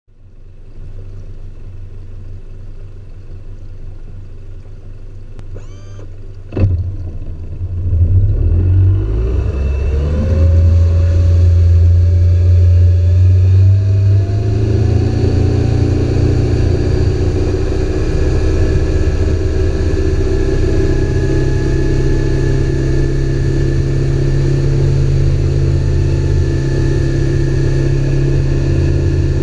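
Mariner FourStroke outboard motor on a test run. It runs low and steady at first, then there is a single sharp knock about six and a half seconds in. After that the engine speeds up with a rising whine and settles into a loud, steady high-speed run, with wind and rushing water over it.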